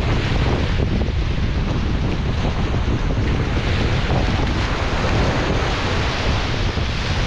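Sea surf breaking and washing up the beach, with wind buffeting the microphone in a steady low rumble.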